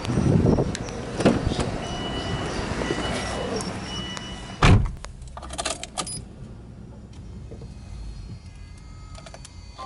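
Subaru Impreza WRX STi driver's door being opened and then shut with one loud thud a little under five seconds in, followed by quieter cabin sounds with scattered small clicks and rattles. The engine is not running.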